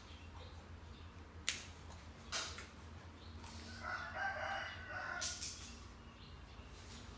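A drawn-out call like a rooster crowing, about two seconds long, beginning some three and a half seconds in. A couple of sharp clicks come before it, the first one loudest.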